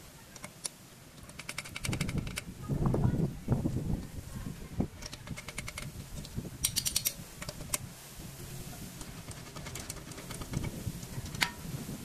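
Hand wrench working the lug nuts off an alloy car wheel: runs of quick metallic clicks, a few single clinks, and low scraping and handling noise as the nuts are loosened and spun off.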